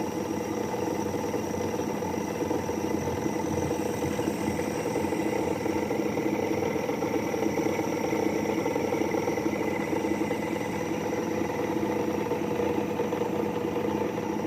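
Washing machine electric motor running steadily, with a rough, fluttering hum and vibration.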